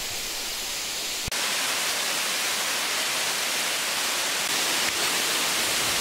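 Steady rushing noise of a waterfall pouring down a wall of basalt columns, turning louder and brighter about a second in.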